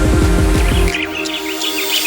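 Background music with a steady beat. About halfway the bass drops out and a run of quick, high bird chirps comes in over the music.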